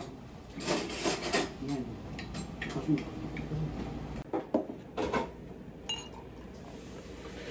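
Dishes and cutlery clattering in scattered bursts, then a short ringing clink and bottled beer being poured into a glass near the end.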